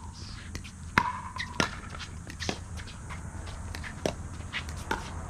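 Pickleball rally: paddles hitting a plastic pickleball, a string of sharp pocks roughly a second apart, the loudest about a second in with a short ring. Players' shoes shuffle on the hard court between hits.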